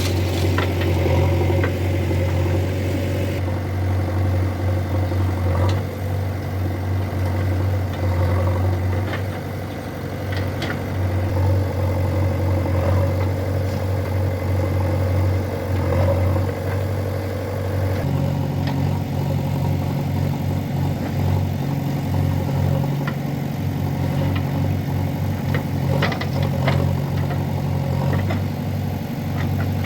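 Heavy diesel machinery running steadily: the engine of a JCB 3DX backhoe loader at work, with a few faint clanks. The engine note shifts about two-thirds of the way through.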